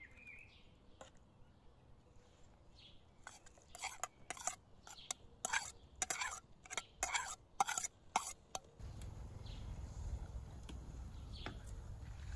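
A spoon scraping and tapping chopped onion off a plate into a pan of raw chicken: a quick run of about a dozen short scrapes and clinks over several seconds. A steady low rumble takes over near the end.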